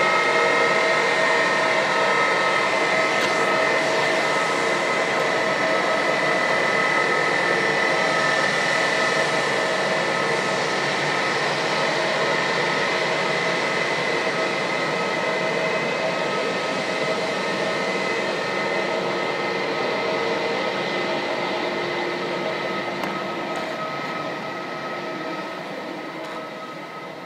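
Airbus A320's twin jet engines whining at taxi power as the airliner rolls past, steady high tones over a rushing noise. The sound fades near the end as the aircraft moves away.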